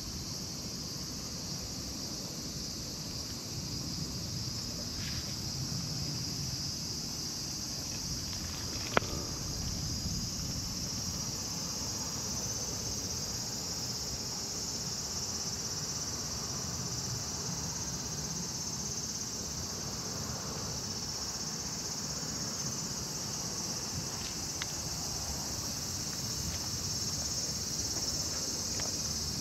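Steady high-pitched drone of an outdoor insect chorus, with a single sharp click about nine seconds in.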